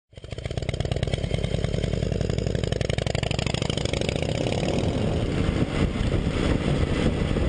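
1956 Harley-Davidson FLE Panhead's 74 cubic-inch V-twin running through Wassell mufflers, its revs lifting a little about three seconds in.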